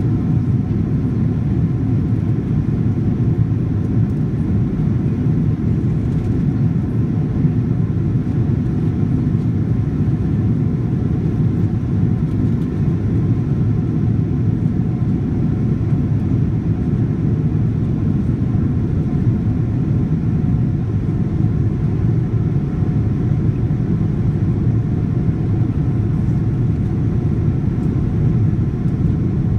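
Jet airliner cabin noise shortly after takeoff: a steady low rumble of engines and rushing air, with faint steady tones running above it.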